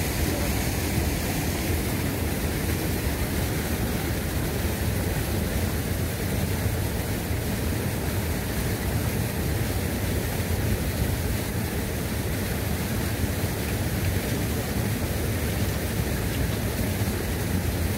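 Small waves washing in over the shallows: a steady rush of surf.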